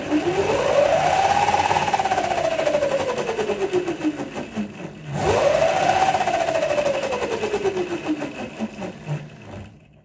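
A 100W electric motor whining as it drives the wheels of an upturned homebuilt kids' electric car through a chain, with the wheels spinning free. Twice it winds up quickly under throttle and then runs down slowly as it coasts.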